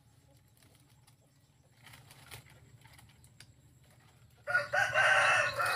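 A rooster crows once, loud and about a second and a half long, near the end. Before it there are only faint rustles and a couple of light knocks.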